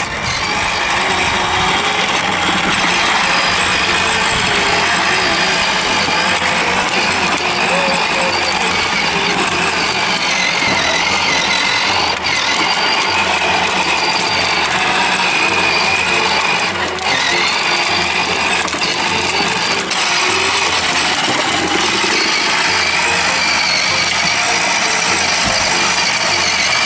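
6-volt battery-powered ride-on toy quad bike driving, its small electric motor and plastic gearbox whirring and grinding steadily.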